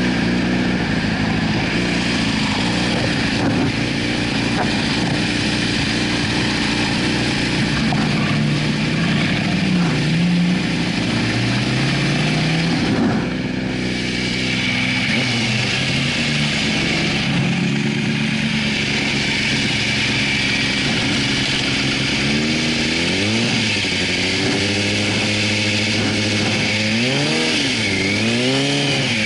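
Yamaha YZF-R6's inline-four engine idling steadily, then revved in several quick throttle blips that rise and fall in pitch near the end.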